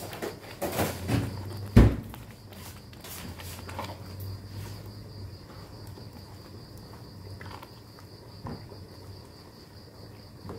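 White spatula knocking and scraping against a nonstick wok while stirring thick rendang paste, with a few sharp knocks, the loudest about two seconds in, then lighter scrapes and clicks. A faint steady high-pitched tone and a low hum run underneath.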